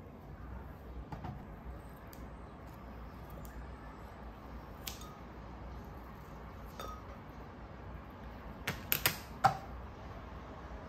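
Kitchen scissors snipping dried mango over a dessert cup: a few small scattered clicks, then near the end a quick run of four sharp snips and clinks, the last and loudest ringing briefly off the cup.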